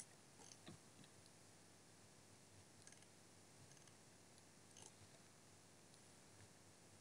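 Near silence: room tone with a few faint, scattered computer mouse and keyboard clicks.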